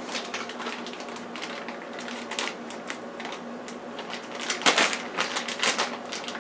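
Plastic bag of shredded cheese crinkling and crackling as fingers work it open, a steady run of small crackles that gets louder a little past two-thirds of the way through.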